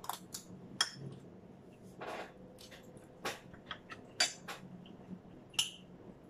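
Metal spoons clinking and scraping against bowls and plates while eating: about ten short, sharp clinks at irregular intervals, with one longer scrape about two seconds in.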